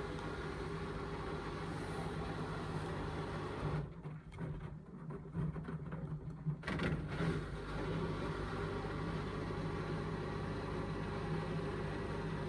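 Indesit washing machine's motor and drum running steadily with a full, unbalanced cotton load during a rinse and intermediate spin. About four seconds in the steady hum drops away for a couple of seconds, with a few irregular knocks, then picks up again.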